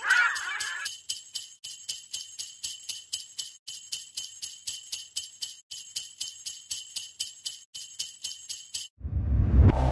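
Jingle bells shaken in a quick, steady rhythm. A honking sound fades out in the first second, and low music starts near the end.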